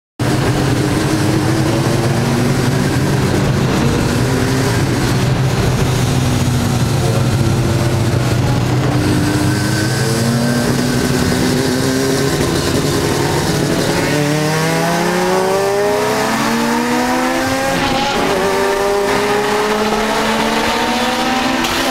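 Race car engine heard from inside the cockpit, running at a steady low drone at first. About two-thirds through, its pitch climbs again and again through several gear changes as the car accelerates, over constant road and wind noise.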